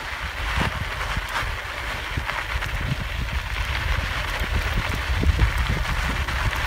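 Wind buffeting the microphone over bicycle tyres crunching along a loose gravel trail, with frequent small knocks and rattles from the bike on the rough ground.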